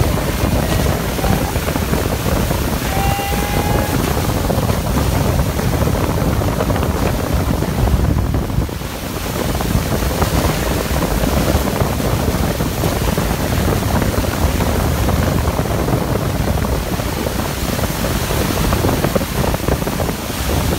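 Loud, steady rush of wind on the microphone mixed with churning water and spray from a barefoot water-skier skimming beside a towboat, with the boat's engine running underneath.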